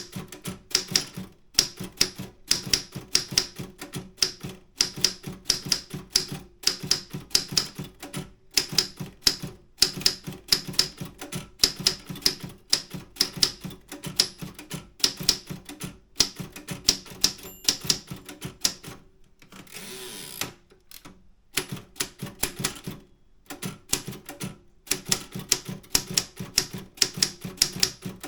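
Optima M10 manual typewriter being typed on: rapid runs of typebar strikes, clacking in quick bursts. About two-thirds of the way through the typing breaks off for a moment, with a brief scraping sound, then resumes.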